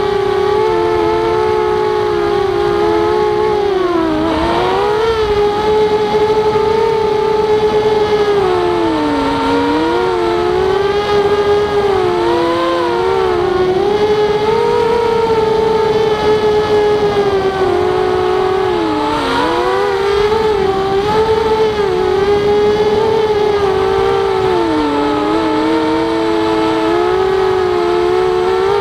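Motors and propellers of a Walkera Rodeo racing quadcopter whining loudly in flight, picked up by its onboard camera. The pitch dips and climbs back every few seconds as the throttle changes.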